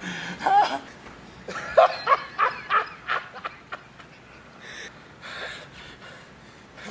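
Canada goose giving short barking honks: a couple near the start, then about six in quick succession from about a second and a half in.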